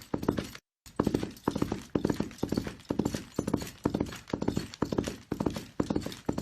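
Horse galloping: hoofbeats in quick clusters of several strikes, about two clusters a second, steady throughout. The sound drops out completely for a moment under a second in.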